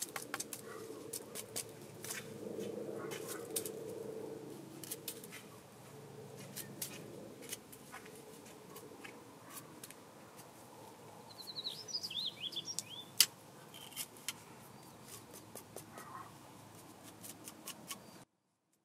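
Irregular light clicks and snips of hands-on food preparation, with a bird chirping briefly a little past the middle.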